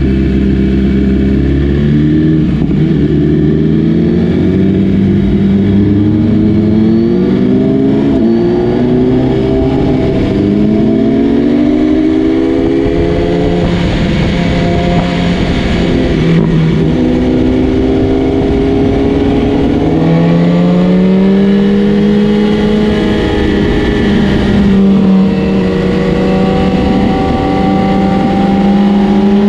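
A 2017 BMW S1000RR's inline-four engine, fitted with an Austin Racing exhaust, idles for a moment and then accelerates through the gears. The pitch climbs and drops back at each upshift, holds steady, dips about halfway through, and climbs again near the end.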